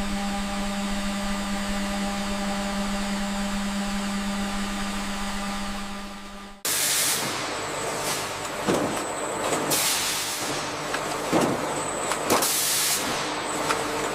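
Steady machine hum for the first six and a half seconds, then an abrupt change to louder industrial noise with repeated bursts of hissing.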